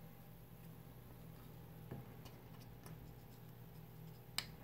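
Quiet handling of small parts by hand: a few faint clicks and taps over a low steady hum, with one sharper click near the end.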